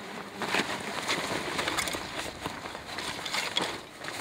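Rustling and scraping of an Eberlestock Battleship backpack's heavy nylon fabric and webbing straps as it is handled and shifted, in uneven rushes with a few sharper knocks.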